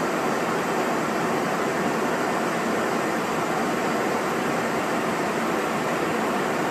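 Steady rushing air noise inside a jet airliner's cockpit in flight, an even hiss with no engine tone or breaks.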